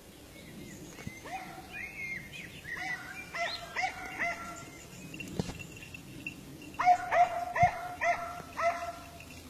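Rabbit-hunting dogs baying in short, repeated yelps, a cluster about a third of the way in and a louder, quicker run near the end: the pack giving tongue on a rabbit's scent.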